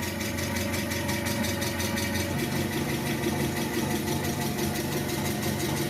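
Mitsubishi FGC25 forklift's LP-gas engine idling steadily after a water pump and timing belt job, running pretty good; its tone shifts slightly about two seconds in.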